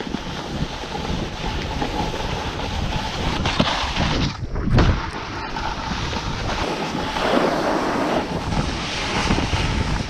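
Wind rushing over the camera microphone while snowboarding downhill, mixed with the hiss of the board sliding on packed snow. A dull thump comes about halfway through.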